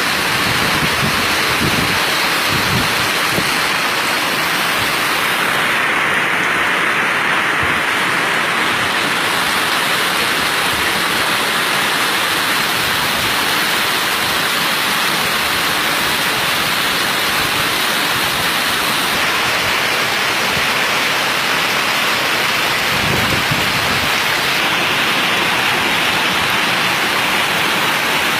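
Heavy rain pouring steadily, a dense, even hiss of downpour, with a couple of brief low rumbles near the start and about 23 seconds in.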